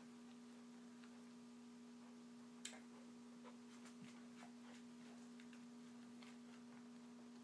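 Faint, scattered clicks and crunches of a Pembroke Welsh Corgi puppy biting and chewing an apple, with one sharper click about two and a half seconds in, over a steady electrical hum.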